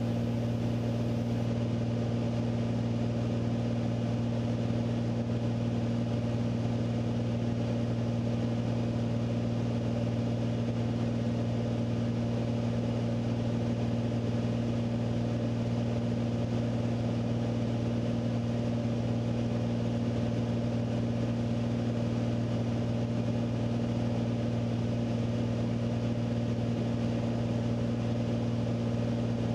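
Beechcraft A36 Bonanza's six-cylinder piston engine and propeller droning steadily in flight, heard inside the cabin as a constant low hum that does not change in pitch.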